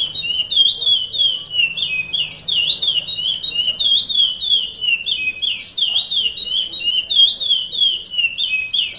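Male curió (chestnut-bellied seed finch) singing the Paracambi rompe nuvem song: a fast, unbroken run of clear, high notes, each a quick down-and-up slur, about three or four a second.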